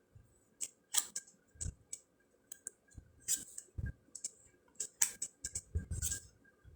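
Round fortune cards being flipped through by hand: irregular light clicks and snaps of card stock, about two a second, some with a soft thud as a card is set down.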